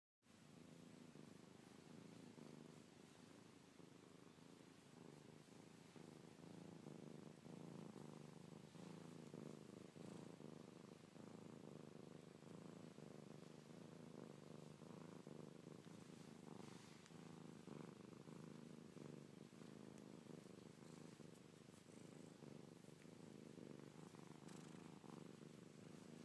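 F1 Savannah cat purring steadily and faintly while being petted, a sign of contentment.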